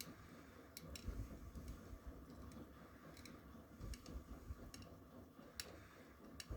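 Miele W1 front-loading washing machine running with a full load of cotton clothes: a faint low rumble from the turning drum that swells and fades, with a few sharp clicks scattered through it.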